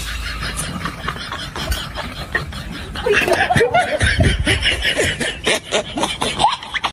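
People laughing and giggling, getting louder about three seconds in.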